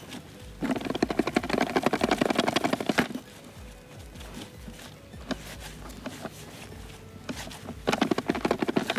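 Hands rubbing and mixing damp fishmeal groundbait in a plastic bucket: a gritty rustling in two spells, a couple of seconds long soon after the start and again shortly before the end.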